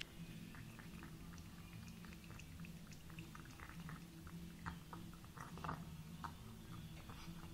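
A cat licking and lapping wet food from a spoon: a run of small, irregular wet clicks and smacks over a steady low hum.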